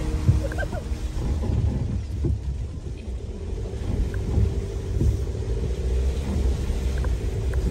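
A vehicle driving on a rough, wet gravel road: a steady low rumble with scattered knocks and jolts, with rain in the background.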